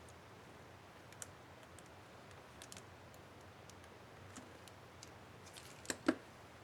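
Scattered small plastic clicks from work on an Asus K55A laptop keyboard's up-arrow keycap and its clips, with two louder clicks close together near the end.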